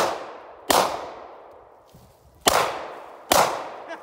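Handgun shots, four of them, unevenly spaced: one right at the start, one under a second in, and two close together near the end. Each crack is followed by a short ringing echo that dies away.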